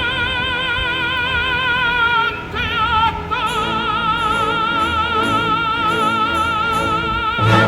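Operatic singing: a solo voice holding long notes with wide vibrato, moving to a new note about two and a half seconds in, then holding one long note until it cuts off abruptly near the end.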